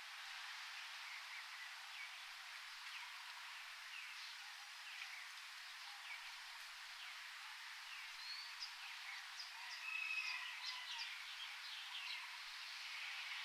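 Small birds chirping and calling over a steady forest hiss, with a busier, louder run of calls about ten seconds in.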